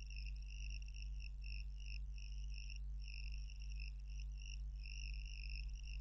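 Faint background: a steady low hum under a high chirping that comes and goes every second or so.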